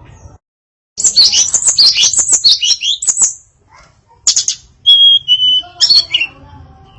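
Female tledekan songbird singing: after a brief dead gap, a fast, varied burst of chirps and trills for about two and a half seconds, then after a pause a few sharp notes and two short steady whistles.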